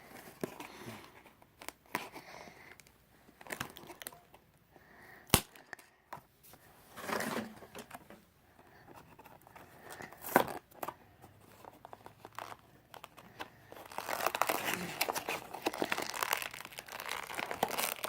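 Toy packaging being handled and pulled open by hand: scattered sharp clicks and short rustles, then a longer stretch of continuous crinkling near the end.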